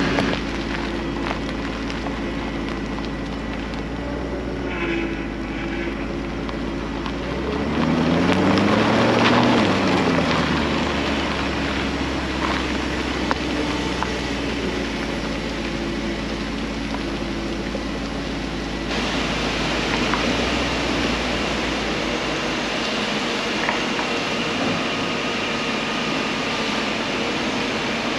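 BMW 5 Series sedan's engine running as the car is driven slowly at low speed, rising and falling in pitch about eight to ten seconds in.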